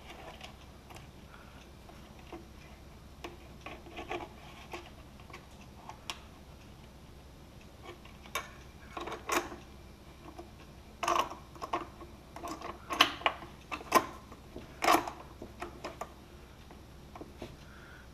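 Scattered clicks, taps and rubbing of hands fitting a gauge and its small metal mounting bracket into a wooden dashboard panel, with wires being handled behind it. The knocks are sparse at first and come thicker and louder in the second half.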